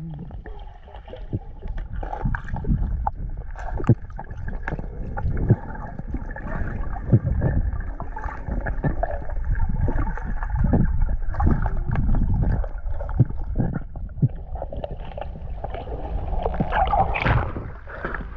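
Muffled water sounds heard underwater through a camera: a steady low rumble and gurgling with scattered sharp clicks. A brighter burst of sloshing comes near the end as the camera reaches the surface.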